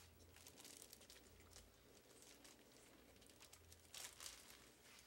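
Faint crinkling and rustling of the bag of flour-coated beef being handled, a little louder for a moment about four seconds in.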